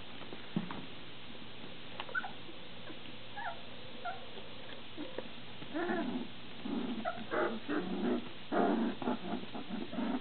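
Young standard poodle puppies whimpering with small high squeaks, then vocalising louder and more often from about six seconds in.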